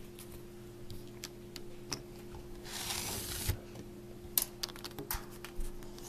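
Handling noise from a handheld camera: scattered small clicks and taps, with a brief rustle of rubbing about three seconds in, over a steady low hum.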